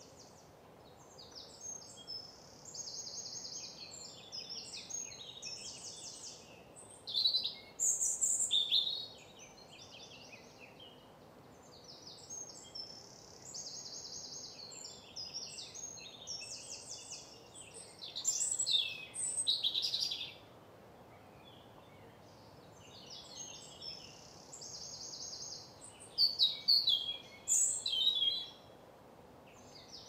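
Wild songbirds singing in woodland. Bouts of rapid high trills build to loud falling notes, repeating about every ten seconds over a steady low background hiss.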